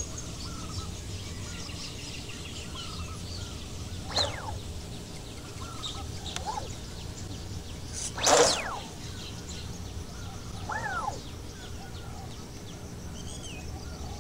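Birds calling: scattered short calls that sweep up and down in pitch, the loudest about eight seconds in, over a steady low hum.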